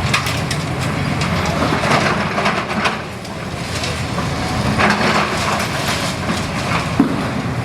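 Excavator's diesel engine running steadily, with several sharp cracks and scraping crunches of rubble and wood being broken.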